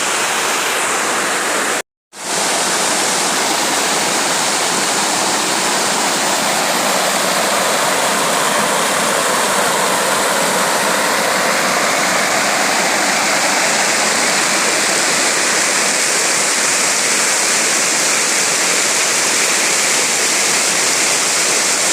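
Waterfall pouring, a steady loud rush of falling water that cuts out for a moment about two seconds in.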